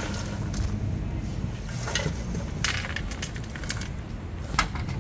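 Freshly popped popcorn tipped out of a metal pan into a steel pot, rustling and pattering in several bursts, with a sharper clack near the end.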